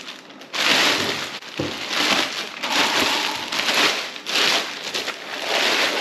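Clear plastic bag and bubble wrap crinkling and rustling in repeated bursts as they are pulled and bunched off a packaged bike.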